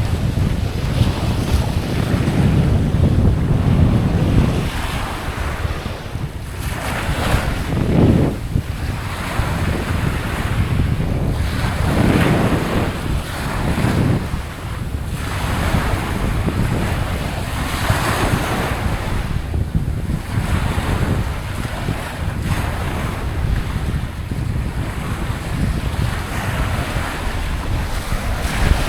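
Ocean waves washing onto the shore in repeated swells every few seconds, with heavy wind rumble on the microphone.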